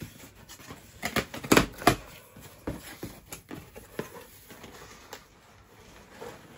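Cardboard shipping box being opened by hand: flaps pulled apart with scattered rustling and scraping, and two sharp cracks about a second and a half and two seconds in.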